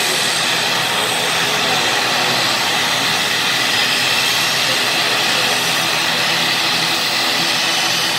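Twin-turboprop airliner's engines and propellers running, a loud, even drone with several held tones through it.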